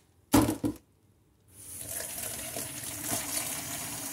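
A brief clatter of a couple of knocks, then from about a second and a half in a steady rush of warm water being poured into a pot full of chopped vegetables.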